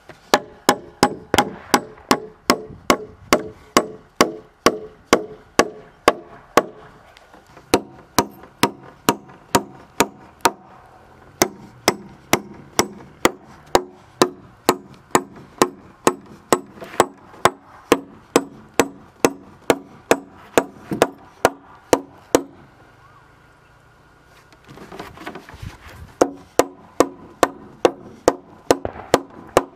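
Steady blows of a hand tool on wood, about two a second, each with a short ringing tone. They stop briefly a few times and pause for about two seconds near the end before starting again.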